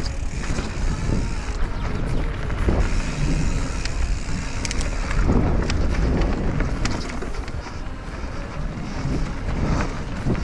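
Radon Swoop enduro mountain bike rolling fast down a dirt singletrack: heavy wind buffeting on the microphone and tyre noise over dirt and stones, with frequent short rattles and clicks from the bike over the bumps.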